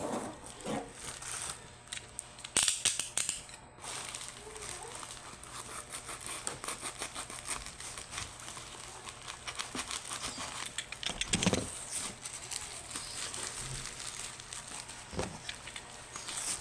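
Packaging crinkling and rustling as it is handled and opened, a dense run of small crackles with louder bursts about three seconds in and again near the middle.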